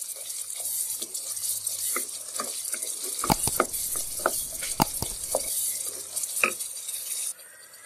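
Red silicone spatula stirring and scraping a thick onion, garlic and ginger paste that is frying in oil in a non-stick pot. A steady sizzle runs under scattered scraping clicks, and the sizzle cuts off abruptly near the end. This is the stage of frying the masala down until the oil separates.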